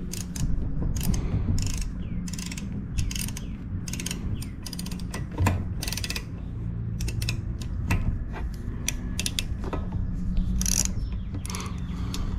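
Hand ratchet clicking in short, irregular bursts of back-strokes as a Helicoil thread insert is worked tight in a mower engine's spark plug hole.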